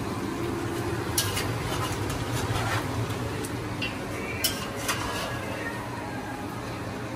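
A metal spoon stirring meat frying in a heavy black pot, with sharp clinks against the pot about a second in and twice more around the middle. A steady low hum runs underneath.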